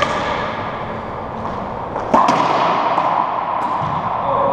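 Racquetball play echoing in an enclosed court. There is a sharp smack right at the start. About two seconds in come two quick, loud cracks of the ball on racquet and wall, followed by a ringing echo off the walls.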